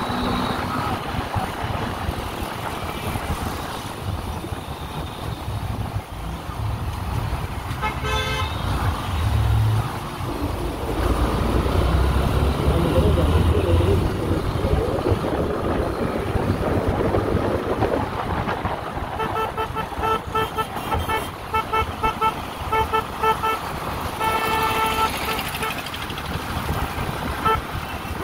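Motorcycle riding in city traffic: a Yamaha FZS V3's single-cylinder engine and wind noise, with a vehicle horn sounding once about eight seconds in, then many short rapid honks between about 19 and 25 seconds and one more near the end.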